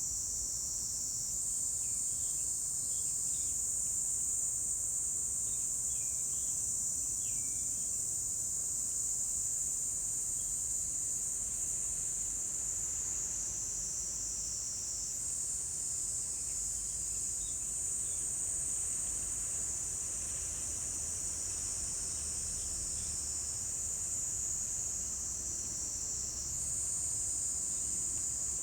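Chorus of insects calling in a continuous, high-pitched trill that shifts slightly in pitch a few times.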